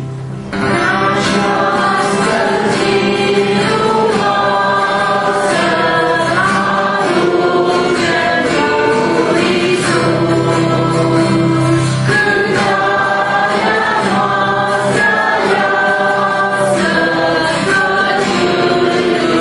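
Hymn sung by a small group to strummed acoustic guitar: a young woman leads at the microphone, with a second woman's and a man's voice joining. The singing and strumming come in fully about half a second in after a brief lull.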